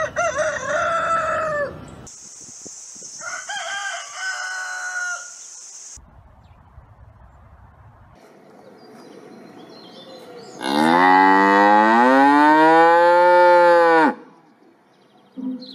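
A rooster calls twice in the first five seconds. About eleven seconds in, a cow gives one long, loud moo lasting about three seconds.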